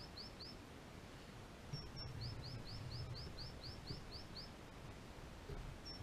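A small songbird singing high, thin notes: three quick notes at the start, two higher notes about two seconds in, then a run of about ten repeated notes at roughly four a second. A faint low rumble runs underneath.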